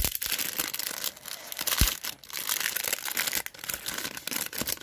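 Plastic packaging crinkling and tearing in quick, irregular crackles as it is opened and the product pulled out, with a single low knock a little under two seconds in.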